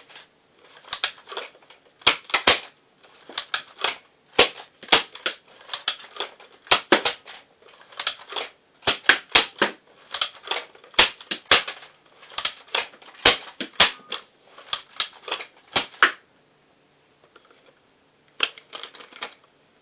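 Two Nerf Maverick revolver-style dart blasters being primed and fired in turn: sharp plastic clacks of the priming slides and rotating cylinders, with the pops of darts, in quick irregular clusters that stop about 16 seconds in. A few more plastic clicks follow near the end.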